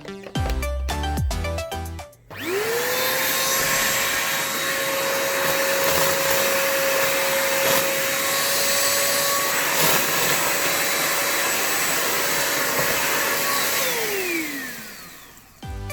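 A PROTECH Kingva bagless canister vacuum cleaner is switched on after a moment of music. Its motor whine climbs quickly to a steady pitch over a loud rush of air and runs evenly for about eleven seconds. It is then switched off, and the whine falls in pitch as the motor spins down.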